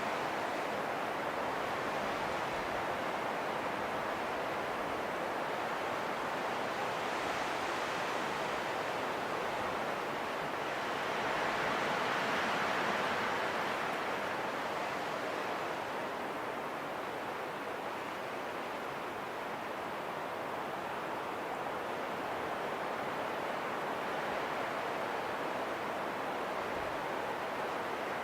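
Steady rushing wind, with one gust swelling louder about halfway through and then dying back.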